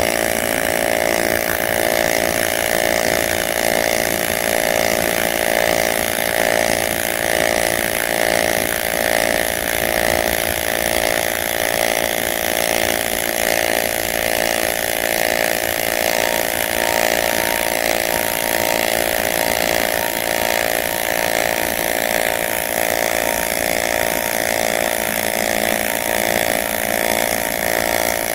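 Welding arc on an aluminum pipe joint welded in the 5G position, a loud steady buzz.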